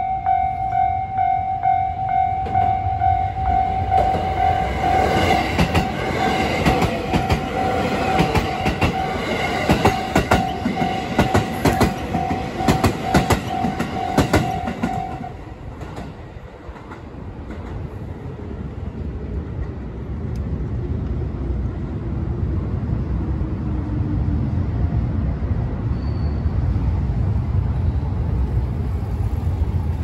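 Japanese level-crossing warning bell ringing steadily while a limited express train runs over the crossing, its wheels clacking over the rail joints. The bell and clatter cut off suddenly about halfway through. Then a Panda Kuroshio limited express comes along the track and passes, its low running rumble building.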